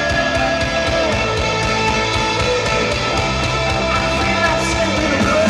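Rock music: electric guitar with held notes that slide in pitch, over a steady beat.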